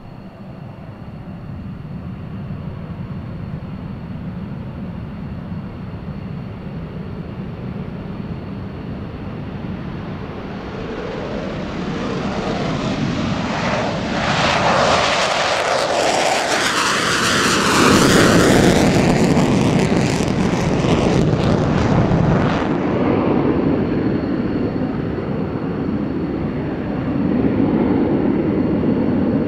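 A McDonnell Douglas F-15 Eagle's twin jet engines at takeoff power, the roar building as it rolls down the runway and lifts off. It is loudest as it climbs past, with a sweeping shift in pitch, then eases off. Near the end a second F-15's takeoff roll brings the roar up again.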